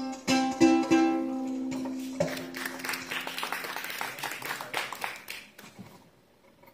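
Khmer pin (arched harp) being plucked: a few closing notes, the last low note left ringing, then a patter of irregular clicks that fades away near the end.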